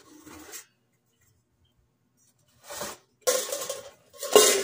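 Parts of a three-tier stainless steel steamer scraping and clanking against each other as they are handled. There is a quiet stretch, then three metal clanks in the second half, the last one loudest and ringing.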